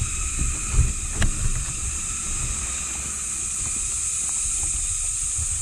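Wind buffeting the microphone in low gusts, with a few knocks in the first second and a half before it settles to a steadier rumble. A constant high-pitched hiss runs under it.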